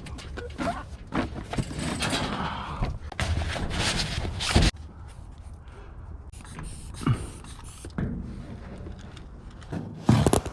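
Scattered clicks, knocks and scrapes of hands handling something, over a noisy background that drops abruptly a little before halfway.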